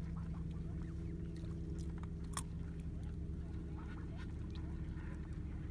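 Ducks quacking in short, faint calls over a steady low engine hum, with one sharp click about two and a half seconds in.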